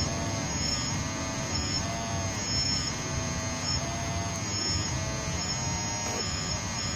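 Small electric motors of a toy-scale Caterpillar remote-control excavator buzzing as the arm and bucket dig into soil, the whine repeatedly dipping and rising in pitch as the load changes.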